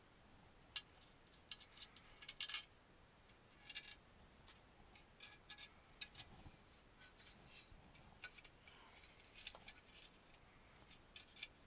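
Faint, irregular small clicks and taps of screws being handled and fitted into the chassis plates of a model kit.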